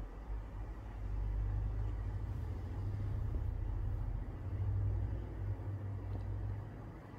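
Kitten purring close to the microphone, a low rumble that swells and eases while she is stroked.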